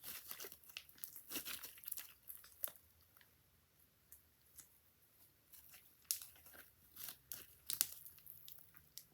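Pink homemade slime packed with beads being squeezed and stretched by hand, giving irregular crackly clicks and small pops, busier in the first few seconds and again near the end.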